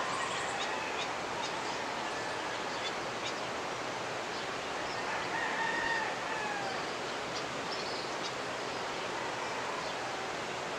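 Steady rush of a mountain river, with a rooster crowing once about halfway through, its call rising and then falling, and small birds chirping now and then.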